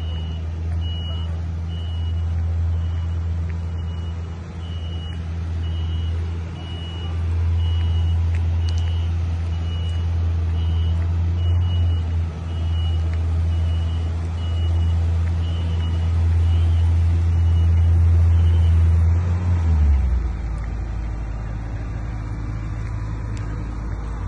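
Heavy vehicle's reversing alarm beeping about once a second over the steady low rumble of its engine. The beeping stops and the engine note drops about twenty seconds in.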